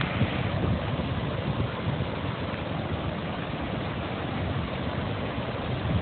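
Whitewater river rapids and a waterfall rushing in a steady, even roar.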